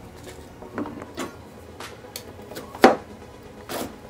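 Knife and onion knocking on a cutting board as a yellow onion is peeled and cut: a few irregular sharp knocks, the loudest about three seconds in.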